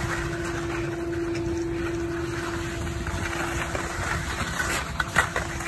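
Skis gliding over packed snow, with wind rushing on the camera: a steady noise with a faint hum under it, and a couple of short knocks about five seconds in.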